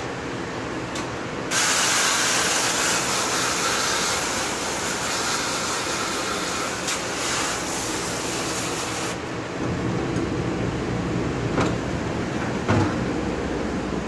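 Water spray hissing hard, starting about a second and a half in and cutting off suddenly some seven and a half seconds later, over a steady low machine hum. Two short clanks near the end.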